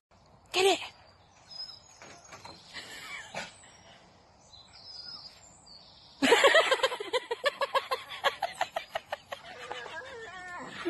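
A dog calls once, shortly, about half a second in. From about six seconds it gives a loud, rapid string of short yips, several a second, with faint bird chirps in the quieter stretch before it.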